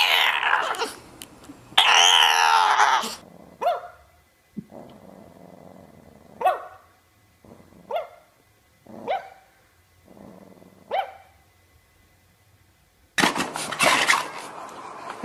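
A dog giving two loud, rough drawn-out vocalisations, then barking single short barks every second or two. Near the end a louder noisy stretch cuts in.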